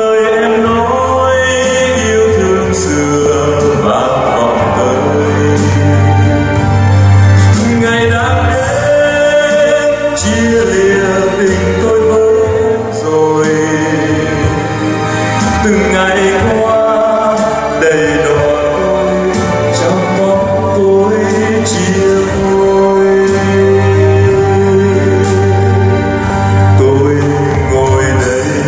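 A Vietnamese song performed live: a singer's voice holding long notes over piano and guitar accompaniment.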